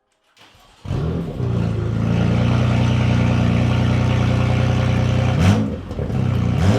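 BMW F80 M3's S55 twin-turbo straight-six starting about a second in and running loud and raw with its mid-pipe removed, open after the downpipes. It is blipped twice near the end, the revs rising and falling quickly, and the turbos can be heard whistling.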